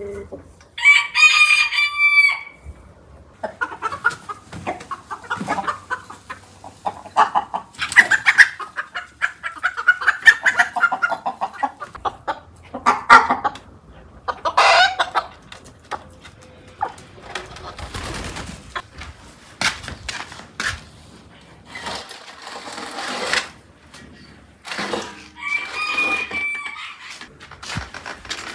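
Chickens clucking and squawking, with a rooster crowing about a second in and again near the end.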